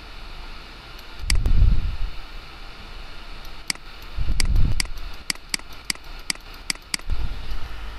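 Computer mouse clicking sharply about a dozen times, irregularly and in quick runs, while the clone stamp tool paints over text. Three dull low rumbles fall between the clicks, over a faint steady hiss.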